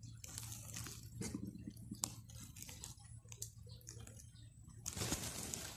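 Rustling, crinkling and scattered light clicks of hands working through nesting material and plastic sacking while picking up duck eggs, with a denser rustle near the end.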